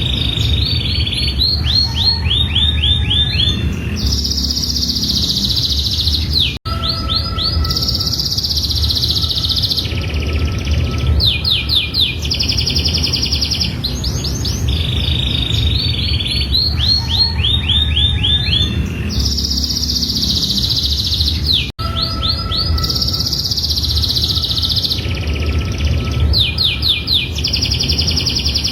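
Domestic canary singing a long, unbroken song of rapid trills and quick sweeping high notes, the same run of phrases coming round again about every fifteen seconds. It cuts out for an instant twice, and a low background rumble runs under it.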